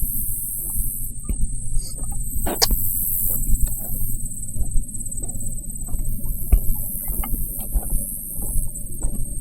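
Clothing rubbing and knocking against a chest-mounted camera's microphone, with irregular low thumps and many scattered small clicks, as the wearer moves about.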